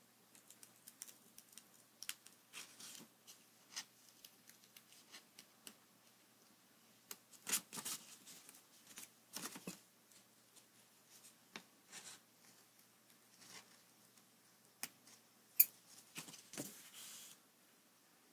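Small pointed scissors snipping paper in short, irregular cuts, with paper rustling as the sheet is turned. The louder snips and rustles come about halfway through and again near the end.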